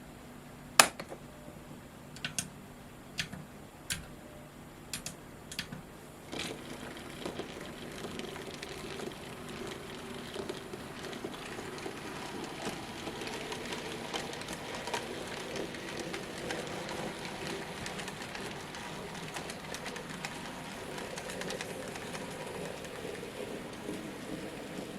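A run of sharp clicks, about one a second, then from about six seconds in the steady rattle and rumble of an N gauge model train running round the track, its wheels and motor going at an even pace.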